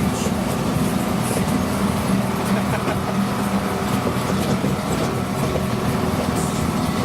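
Engine of a children's ride train running steadily as the train moves along with its riders, a continuous even drone.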